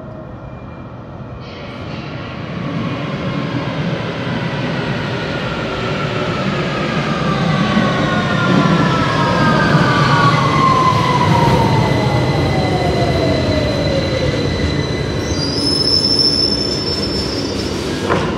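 London Underground tube train running into the platform. Its rumble grows louder from about two seconds in, and a whine falls steadily in pitch as the train brakes. Near the end, as it comes to a stop, there is a high-pitched squeal.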